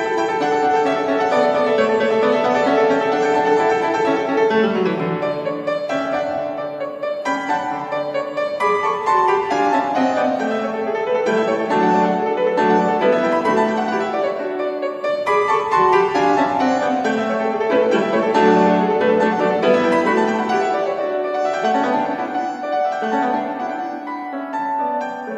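A grand piano played solo: a classical piece with quick runs of notes sweeping up and down the keyboard.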